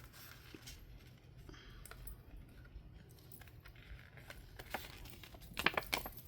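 Faint paper handling: sheets of thick cover paper sliding and rustling as they are folded in half and lightly creased, with a louder rustle near the end.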